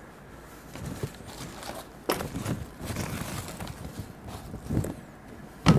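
Unpacking noises: rustling of packing material, with several dull thumps and knocks as the subwoofer and its wrapping are handled. The loudest thump comes just before the end.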